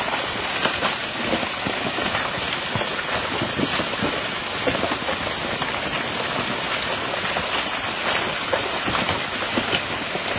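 Steady rain falling, a dense even patter with many small drop taps.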